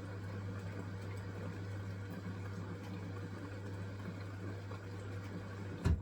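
Hisense washing machine running on its wool cycle: a steady low hum, ending in a short thud just before the end, after which it goes much quieter.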